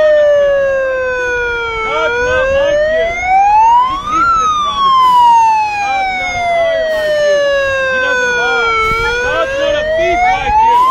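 A loud siren wailing. Its pitch slides slowly down for a few seconds, then rises more quickly, in a cycle of about seven seconds that bottoms out twice and peaks twice.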